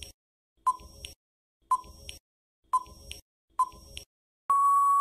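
Quiz countdown-timer sound effect: a short beep about once a second, four times, then a longer steady beep near the end that marks time up before the answer.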